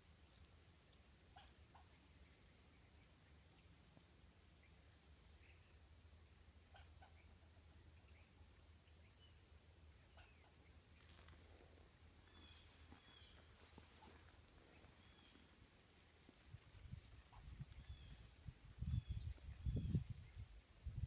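Steady high drone of insects, with a bird chirping faintly now and then. A few low thuds near the end.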